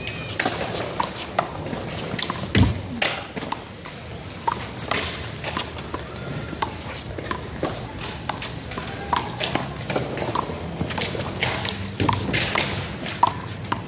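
One-wall handball rally: the small rubber ball smacked by hands and slapping off the wall and court in a run of sharp, irregular slaps, the loudest about two and a half seconds in.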